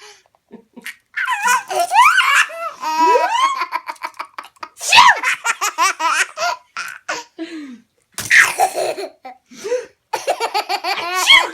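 Baby laughing in repeated bouts of high squeals whose pitch swoops up and down, with short pauses between bouts.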